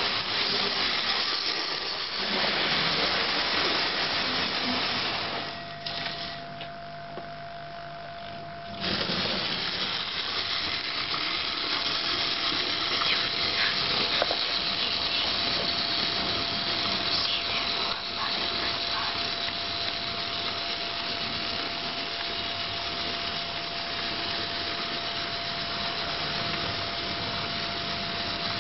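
Hornby model steam locomotives running on the track: a steady whirr of small electric motors and wheels with a hissing edge and a steady hum. It drops away for a few seconds about six seconds in, then picks up again.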